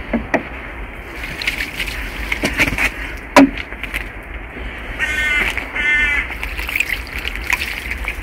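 A crow cawing twice, two harsh half-second calls about a second apart past the middle, with one sharp knock a few seconds earlier over light handling noise.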